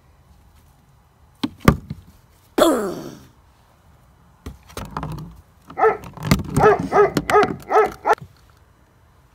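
A couple of sharp thumps, then a single dog-like yelp falling in pitch, then a dog barking quickly about three times a second for a couple of seconds.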